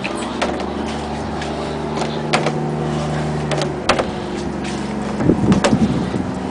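Engine of a boatyard lift running steadily, with scattered sharp metallic clicks and knocks. Near the end the hum gives way to a rough, uneven low rumble.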